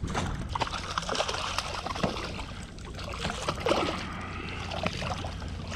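A hooked speckled trout splashing at the water's surface beside a kayak, in irregular splashes.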